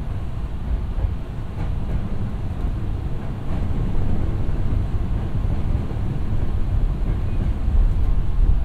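Hankyu 7000 series electric commuter train running, heard from inside the car: a steady low rumble of wheels and running gear that slowly gets louder.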